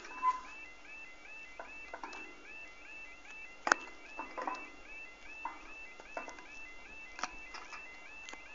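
Level crossing audible warning alarm sounding faintly: a repeating warbling tone of short sweeps, about three a second. A few sharp clicks occur, the loudest between three and four seconds in.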